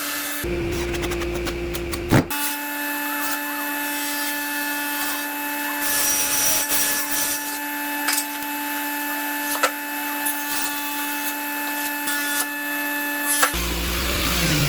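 An electric power tool running steadily as it works wood, its motor holding one even pitch, with a few sharp knocks, the loudest about two seconds in.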